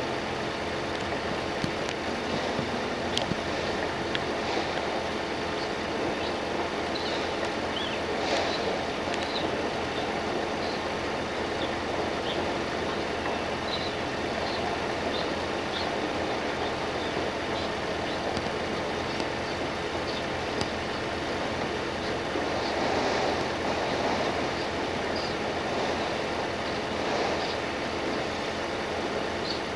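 Steady mechanical din of engines and machinery at a fishing port during unloading, with scattered faint high chirps and clicks over it.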